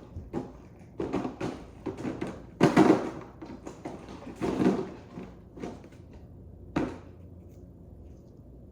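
Knocks, bumps and scraping of a slime container being handled and put away, in a string of irregular thuds that are loudest about three seconds in, then dying down after about seven seconds.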